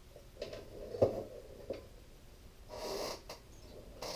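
Close handling noise: a few small knocks and clicks, the sharpest about a second in, and a short breathy rush about three seconds in.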